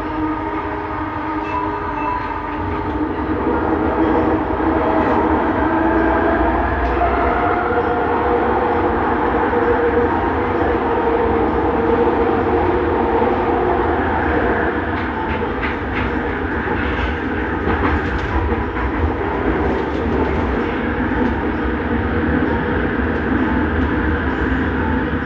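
Bombardier Innovia Metro 300 train heard from on board while running, its linear induction motors giving a steady whine of several tones that shift in pitch over the first few seconds, over rumbling running noise. A run of short knocks comes through in the second half.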